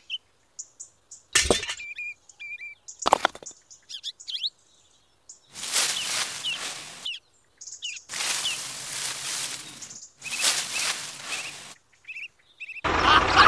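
Small birds chirping, with a few sharp knocks early on and three stretches of scratchy rustling and crunching as charred cardboard debris is poked through.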